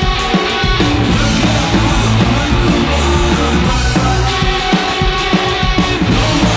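Punk-rock band playing loud and live: distorted electric guitar, bass guitar and a drum kit with steadily crashing cymbals.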